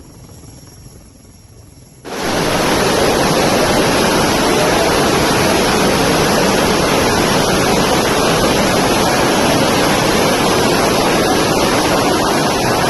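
Floodwater in spate rushing in a torrent: a loud, steady roar that starts abruptly about two seconds in, after a faint hiss.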